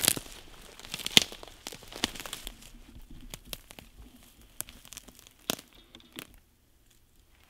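Footsteps crunching and rustling through dry grass, twigs and brush on a forest floor, with sharp snaps of breaking twigs. They stop about six seconds in.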